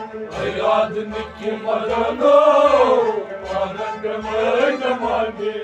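Men singing a Kashmiri Sufi song to harmonium accompaniment, the lead voice rising and falling in long sliding phrases over a held harmonium drone and a steady low beat.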